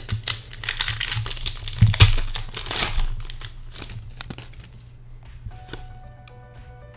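Foil wrapper of a Pokémon trading card booster pack being crinkled and torn open by hand. It crackles sharply for the first four seconds or so, then quiets to light rustling as the cards are slid out.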